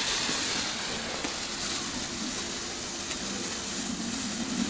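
Xplode Crazy Eyeball ground spinner firework (category F1) burning on the ground with a steady hiss, easing slightly in the first second, with a few faint ticks.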